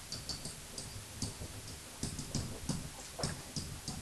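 Stylus pen of an interactive whiteboard tapping and sliding on the board while handwriting words: irregular light clicks, a few each second.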